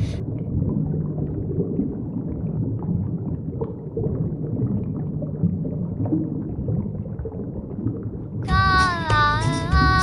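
Low, muffled underwater ambience, a steady rumbling hiss with faint gurgles and small clicks. About eight and a half seconds in, a child's song with music starts.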